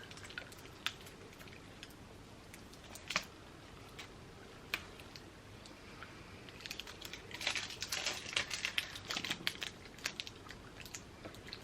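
Light, irregular clicking and crackling from handling hard sour sweets and their packaging: a few single clicks, then a denser patter of small clicks in the second half.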